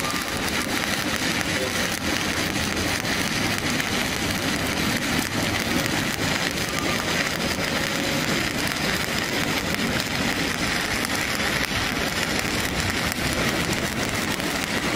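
Stick-welding arc from a 7018 electrode burning steadily, a continuous crackling sizzle as a vertical-up weld bead is run on steel plate.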